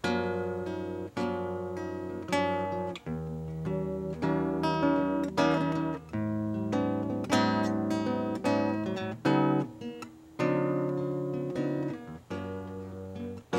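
Acoustic guitar playing an instrumental introduction, strummed and plucked chords that change every second or so.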